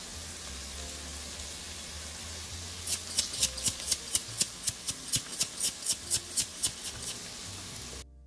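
Salt and pepper shakers shaken over a pot of celery and onion sautéing in butter: a run of about eighteen quick, crisp shakes, roughly four a second, starting about three seconds in, over a low sizzle. The sound drops out briefly near the end.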